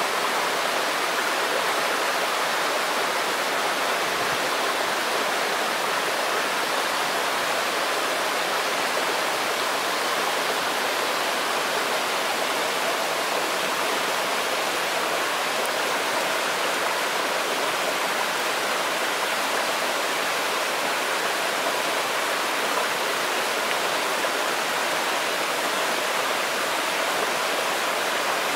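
Cascade of a mountain stream pouring over rocks into a pool: a steady rush of falling water.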